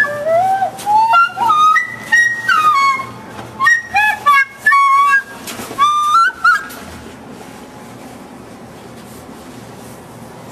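Recorder-type flute played unsteadily: a string of high, wavering notes that slide up and down and keep breaking off. The playing stops about seven seconds in, leaving faint room hiss.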